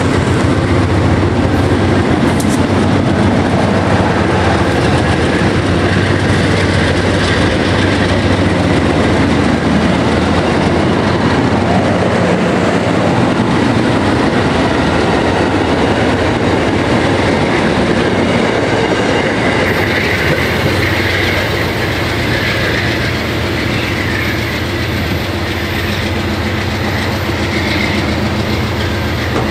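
Amtrak passenger cars rolling away from the station, steel wheels rumbling and clicking over the rails. The sound eases off slightly in the last third as the train draws away.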